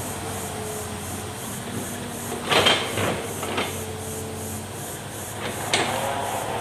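Hitachi Zaxis excavator's diesel engine running steadily while it handles felled logs, with sharp cracks and scrapes of wood about two and a half seconds in (the loudest), again around three and a half seconds, and near the end.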